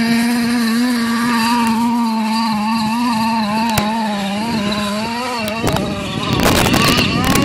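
Small engine of a 1/5-scale RC trophy truck running and revving, its pitch wavering up and down. About five and a half seconds in, louder rustling noise with sharp knocks covers it.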